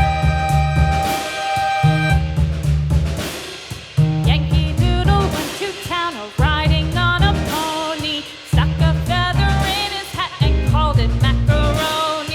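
Background music: an upbeat song with a steady drum and bass beat and a sung melody.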